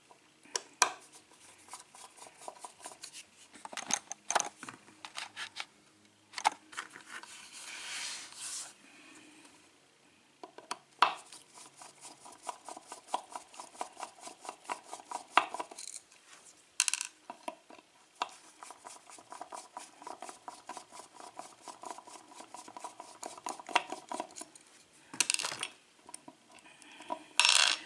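Screwdriver working the screws on the back of a brass lock cylinder: rapid runs of small metallic clicks with occasional sharper clinks and a brief scrape of metal on metal.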